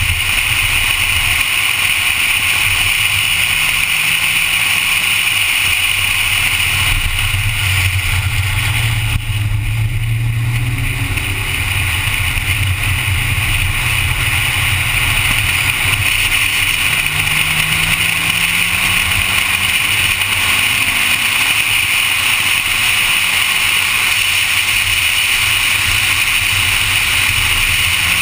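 Honda Civic's engine running hard at track speed over steady wind and road noise, its pitch climbing again about two thirds of the way through as the car accelerates.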